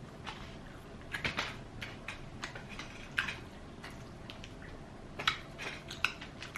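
Close-up eating sounds: crispy fried chicken being bitten and chewed, with irregular crunches and wet mouth clicks, a few louder crunches about a second in and again near the end.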